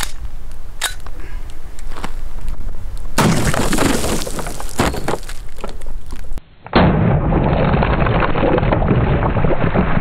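Handgun shots hitting a row of gallon plastic water jugs, with the jugs bursting and water splashing: sharp cracks early on, then a long noisy rush of spray. About two-thirds of the way in the sound drops out for a moment and continues duller and muffled.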